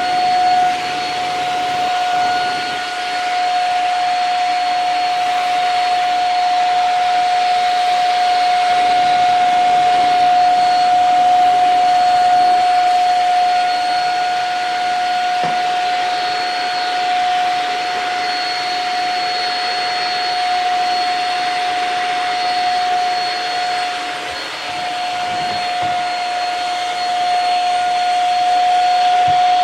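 Shark Rocket corded stick vacuum running with a hose attached: a steady high motor whine over rushing airflow, with small swells in loudness as the nozzle works.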